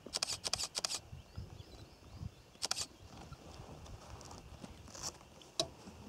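Camera shutters firing in quick bursts: a rapid run of about six clicks at the start, a short burst of a few more midway, and a single click near the end.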